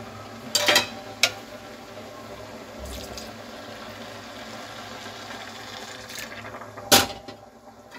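Full-cream milk being poured from a pot into a pressure cooker of grated carrots: a steady pouring splash. There are two short knocks in the first second and a single sharp knock about seven seconds in.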